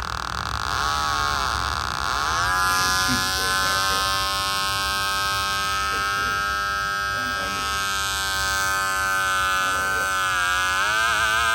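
Homemade 12-volt bicycle siren sounding through its tiny speaker: a buzzy electronic tone that slides up in pitch over the first couple of seconds, holds steady, then wavers and sweeps up again near the end.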